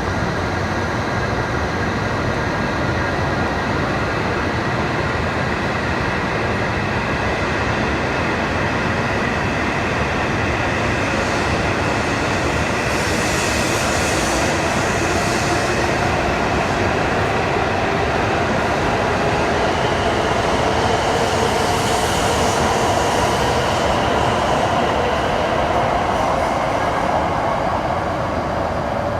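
E7/W7-series Shinkansen train moving slowly along the platform, a steady rumble overlaid with the whine of its electrical equipment; the whine rises in pitch in the second half. Two brief hissing swells come partway through.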